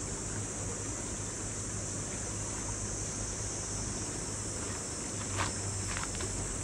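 Steady outdoor ambience of a river flowing over a stony bed, with wind on the microphone. A couple of light clicks come about five and a half and six seconds in.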